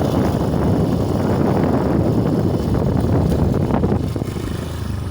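Wind buffeting the microphone while riding, with a dense low rumble that eases off about four seconds in.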